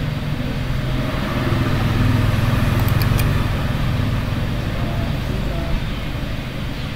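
Low rumble of road traffic, swelling as a vehicle passes about two seconds in and then easing off. A few light clicks sound near the middle.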